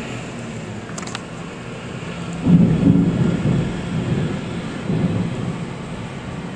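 Thunder: a low rumble that breaks suddenly about two and a half seconds in and rolls on for a few seconds, swelling once more before it fades.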